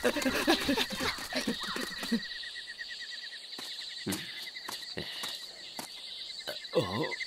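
Cartoon soundtrack: yelping, wavering cries for about two seconds, then forest ambience with steady, rhythmic insect chirping, a few soft taps, and a short falling vocal sound near the end.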